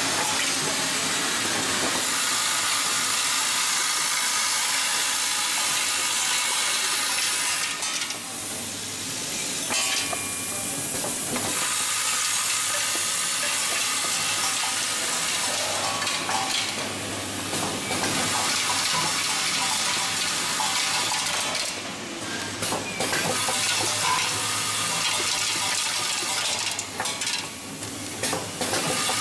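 Vibratory bowl feeder running, a continuous dense metallic rattle of hex-head screws with washers jostling and clinking in the vibrating bowl, easing briefly a few times.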